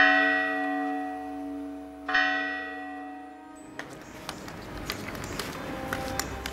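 A church bell struck twice, about two seconds apart, each stroke ringing on and slowly fading. After that come only faint, scattered taps.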